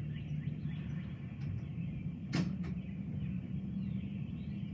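Birds chirping in short falling notes over a steady low rumble. About halfway through comes a sharp swishing click, followed by a fainter one.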